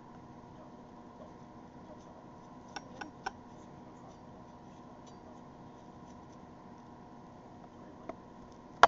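Knife tapping on a wooden cutting board as green peppers are cut: three quick sharp clicks about three seconds in, a faint one near the end and a louder one right at the close. A steady background hum runs underneath.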